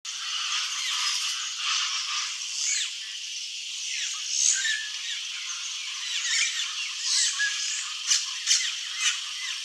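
Several red-rumped caciques calling together in a dense, overlapping chorus of chattering, rattling and swooping notes, with a few sharp clicking notes near the end.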